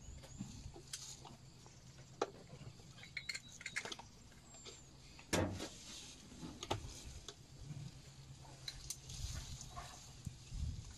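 African elephant feeding at close range: twigs snapping and leaves rustling as it pulls at a bush with its trunk, in scattered cracks, the loudest about five and a half seconds in.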